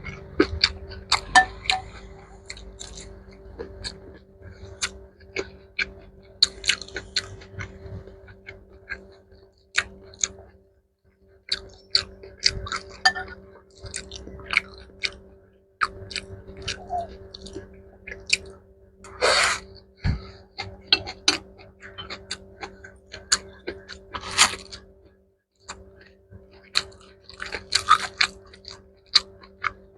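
Close-miked chewing of mixed rice with kimchi and pickled mustard greens: many sharp, crunchy clicks and wet mouth sounds. Over it runs a faint steady background tone that drops out twice.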